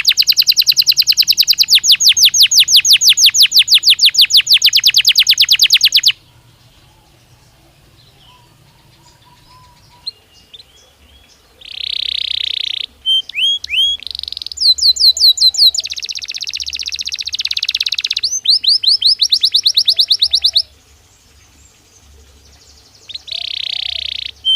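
Belgian canary singing: a fast, rapidly repeated trill for about six seconds, a pause of several seconds, then a run of varied trills and rolling phrases, another pause, and a short roll near the end.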